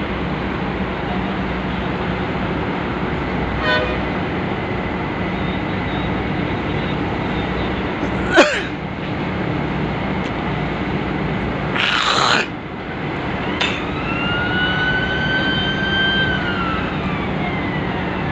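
Steady low drone of a container ship's engines and machinery as the ship moves close past the quay. A sharp knock comes about eight seconds in and a short hiss a few seconds later. Near the end a high tone is held for about three seconds, rising slightly and then falling away.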